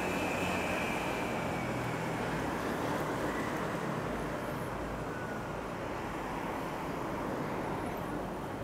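Steady street traffic and road noise heard from a moving bicycle, with a passing vehicle's engine hum fading out about three seconds in.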